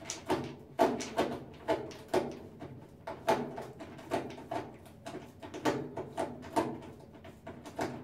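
Screwdriver backing a screw out of a Kenmore top-load washer's control console, with a sharp click about twice a second as the handle is turned.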